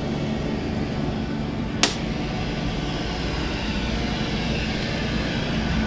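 A toggle breaker on a boat's 120-volt AC electrical panel snaps over with one sharp click about two seconds in, over a steady machine hum.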